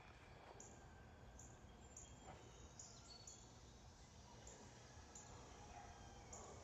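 Near silence: faint outdoor ambience with short, faint high chirps repeating irregularly every half second or so.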